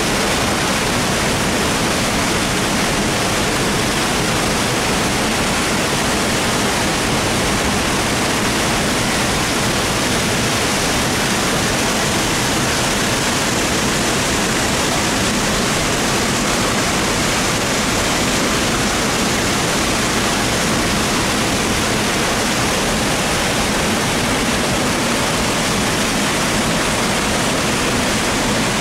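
Small waterfall of river water pouring over smooth, water-worn granite into a churning pool: a steady, unbroken rush of falling and swirling water.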